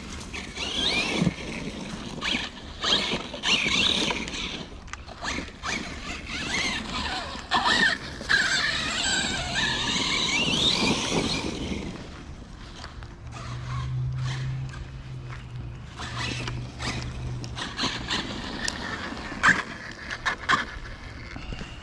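Arrma Kraton 6S RC truck being driven hard: a high whine that rises and falls in pitch as it speeds up and slows, with scraping and knocks as it runs over the ground. About halfway through the whine drops away, leaving a quieter low hum and scattered knocks.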